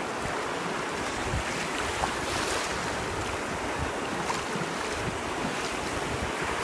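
Shallow surf washing in over a stony beach, a steady rush of foaming water, with wind buffeting the microphone.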